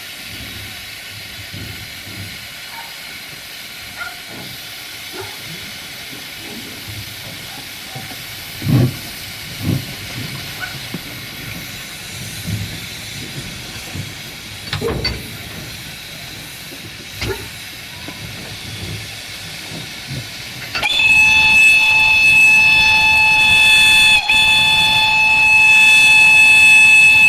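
Narrow-gauge steam locomotive hissing steam, with a few scattered chuffs and knocks. About 21 seconds in, its steam whistle starts suddenly and sounds one long, steady blast at a single pitch.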